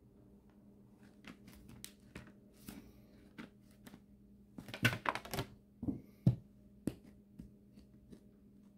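A thin plastic Lego baseplate being pressed down by hand onto a plywood sheet: scattered clicks and crackles of the plastic, busiest about halfway through, followed by two dull thumps.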